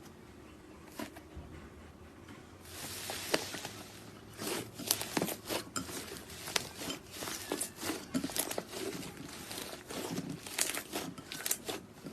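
Slime being squeezed and worked by hand, making a fast, irregular run of crackling, popping clicks that starts about three seconds in.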